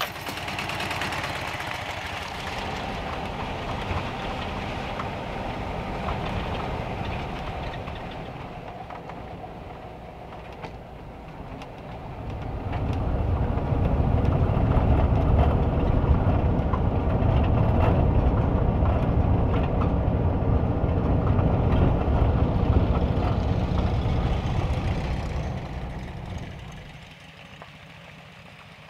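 Volkswagen Kombi van's engine running, growing louder about twelve seconds in and fading away near the end.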